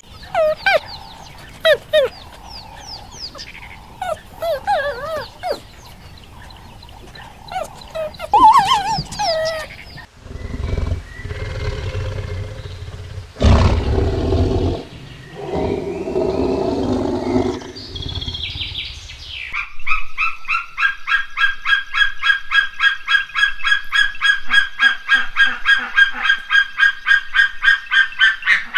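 A string of different animal calls: short, chirping calls that glide in pitch for the first nine seconds or so, then low, rough calls from about ten seconds in, then a long run of rapid, evenly repeated high calls, about four a second, over the last nine seconds.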